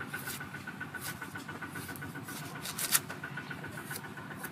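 Cleaver blade shaving the skin off a raw taro corm in a few sharp scraping strokes, the loudest about three seconds in. Behind it, a steady, fast-pulsing drone.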